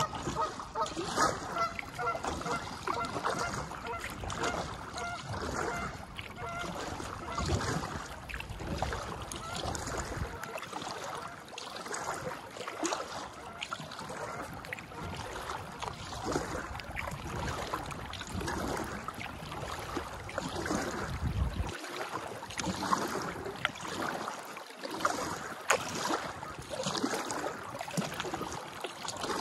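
Geese honking over the first several seconds, over the regular splash and drip of a kayak paddle dipping about once every second and a half.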